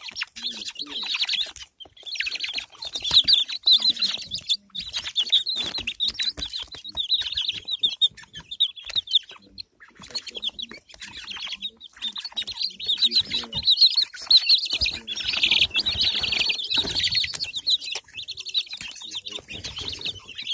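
A brood of young chicks peeping, many short high cheeps overlapping almost without a break, with brief lulls now and then.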